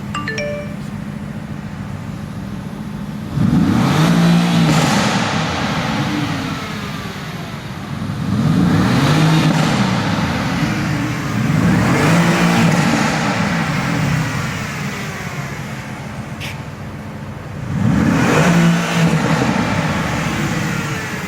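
Car engine idling and revved four times, each rev rising in pitch and then dropping back to idle.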